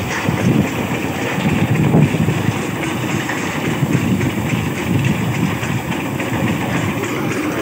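Farm thresher running steadily under power, with a low churning rumble as dried crop stalks are fed down its chute into the drum.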